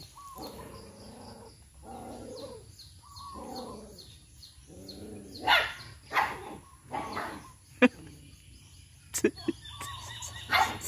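A dog vocalizing at a rooster in a squabble over food: a run of drawn-out calls, then louder short barks from about halfway. A few sharp knocks come in the last few seconds.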